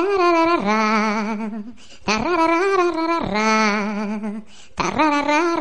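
Background music: a voice singing a melody in three long phrases, about a second and a half to two seconds each, the pitch wavering and sliding within each phrase.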